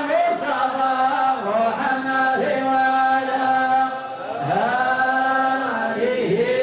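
Religious chanting: voices holding long notes in unison and gliding slowly between them, in a steady melodic recitation.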